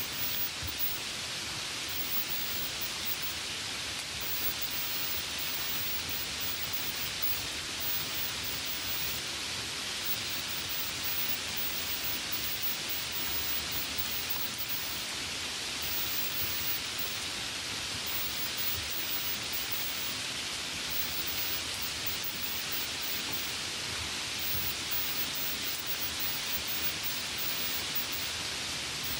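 Light rain falling, a steady even hiss with no separate drops or thunder standing out.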